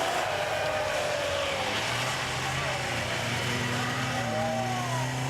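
Classic rally cars' engines running, one holding a steady note while another revs up and down.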